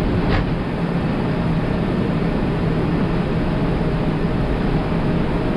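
Steady cockpit noise of an Airbus A380 at takeoff thrust during rotation and liftoff: an even rush of airflow and engine noise with a low hum underneath.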